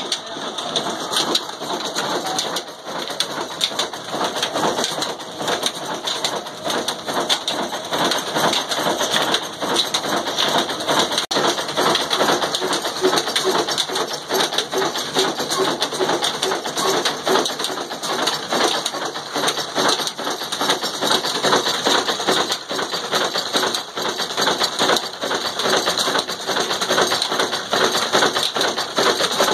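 Old Ruston-Hornsby-type desi diesel engine running a flat-belt drive to a chakki flour mill: a loud, continuous, dense clatter of the engine, spinning pulleys and slapping belts.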